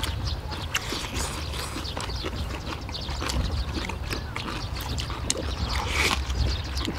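People chewing and smacking while eating braised kimchi and meat, with many small clicks of eating utensils over a low steady hum.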